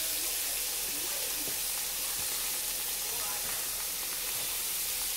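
Oyster mushroom pieces sizzling in hot melted butter in a frying pan as they are laid in by hand: a steady high hiss with a few faint ticks.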